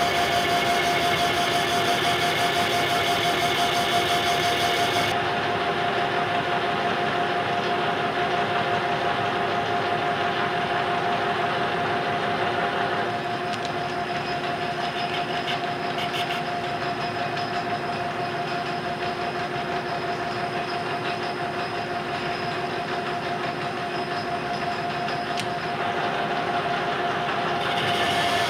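Metal lathe running with a steady whine, its chuck spinning a 4-inch ductile iron bar.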